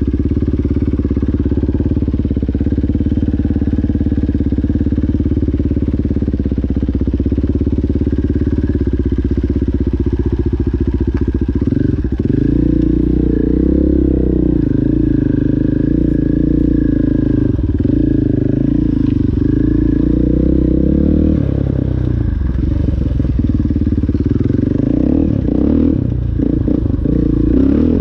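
KTM 500 enduro dirt bike's single-cylinder engine running steadily at low revs for about the first twelve seconds, then pulling away under load, its pitch rising and falling with the throttle. In the last few seconds irregular knocks and rattles join the engine as the bike rides over rough ground.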